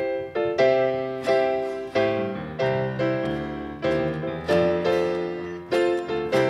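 Piano playing slow, evenly paced chords, struck about every two-thirds of a second, each ringing and fading before the next.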